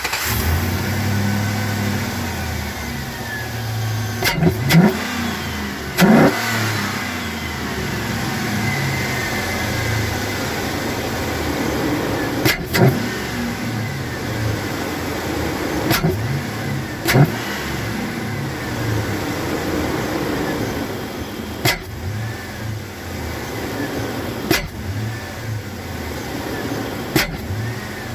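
2004 Chevrolet Silverado V8 running close up at its short-ram intake with a small cone filter, revved a few times so that the intake draws hard. Several brief sharp clicks are heard through it. The owner calls the sound healthy, the engine sucking in a lot of air.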